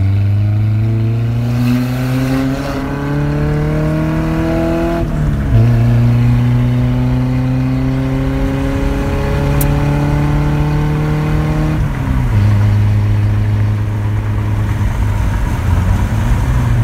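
Pickup truck engine accelerating hard through its new chrome exhaust tip, the pitch climbing steadily through the gears. It drops back twice as the transmission upshifts, about five seconds in and again about twelve seconds in, then runs at a steadier pitch near the end.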